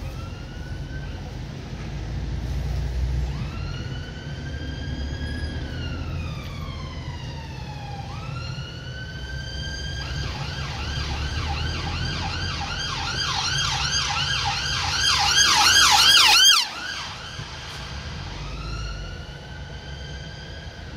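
Emergency vehicle siren wailing in slow rising and falling sweeps, then switching to a fast yelp about ten seconds in that grows louder and cuts off suddenly a few seconds later. The slow wail returns, fainter, near the end, over the low rumble of traffic.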